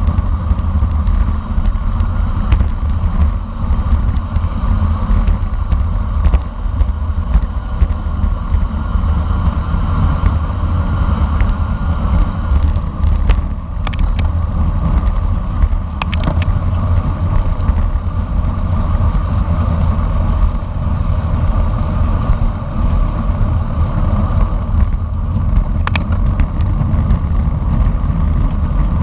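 Wind buffeting the microphone of a camera on a bicycle moving at race speed: a loud, steady low rumble, with a few sharp clicks about halfway through and near the end.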